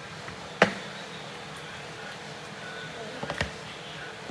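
A single sharp knock about half a second in, then a few lighter clatters near the end, as kitchen items are handled and set down on a countertop.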